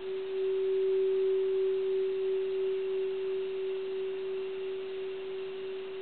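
Mid-1800s Japanese bronze Buddhist temple bell ringing after a strike from a wooden striker. It holds one deep, steady hum tone that swells at the start and then fades slowly, with a faint high overtone above it. It is a weird distant kind of sound.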